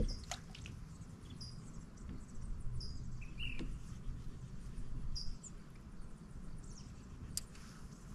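Small birds chirping: short, high, downslurred chirps repeating every second or so, with one lower call about three and a half seconds in. A sharp click at the start and another about seven seconds in, over a steady low rumble.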